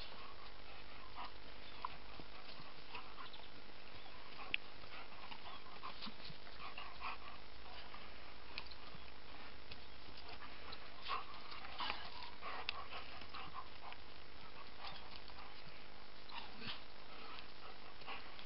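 Two German Shepherds play-fighting: scattered short dog noises and scuffles, busiest around the middle, over a steady background hiss.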